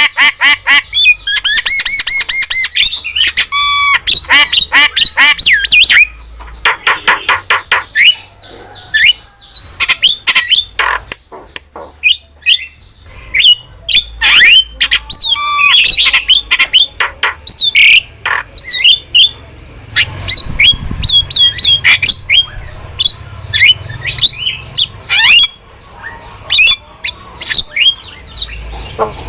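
A jalak (myna-type starling) singing and chattering loudly: fast runs of sharp repeated notes, curving whistles that rise and fall, and harsh squawks, in bursts with short pauses.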